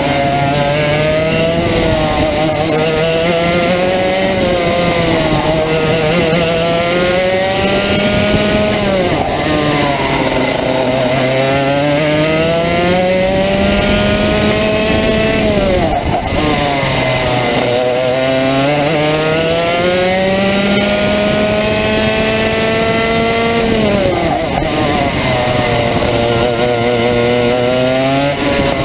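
Onboard sound of a Rotax Max 125 cc single-cylinder two-stroke kart engine at racing speed. Its note climbs steadily over several seconds, then falls sharply as the throttle is lifted for a corner; this happens three times.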